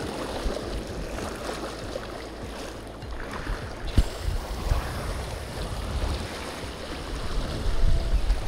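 Small waves washing and lapping over a low rock shelf at the water's edge, with gusty wind rumbling on the microphone. A single sharp click sounds about four seconds in.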